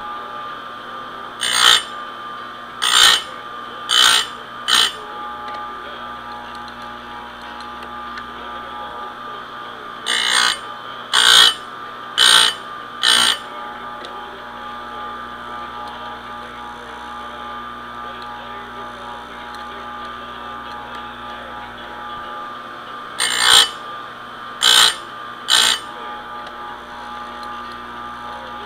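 Electric chainsaw-chain sharpener's motor running steadily while its grinding wheel is brought down onto the chain's cutters in short grinds about a second apart. The grinds come in three runs: four, then four, then three.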